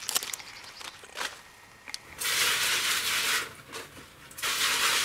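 Garden hose spray nozzle spraying water onto cut kale and collard leaves in a plastic tub, in two spells of hiss, the first about two seconds in and the second near the end. Before the spraying come a few sharp snips and leaf rustles.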